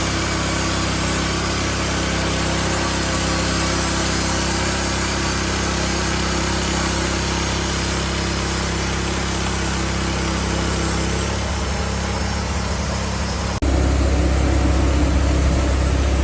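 Wood-Mizer portable band sawmill running steadily, its engine and band blade cutting through a log. About thirteen seconds in the sound changes suddenly to a louder, deeper engine hum.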